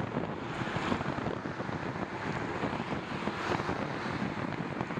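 Road traffic passing close by in the next lane, heard through steady wind rushing over the microphone of a moving bicycle's camera, with swells as cars go by about a second in and again past the middle.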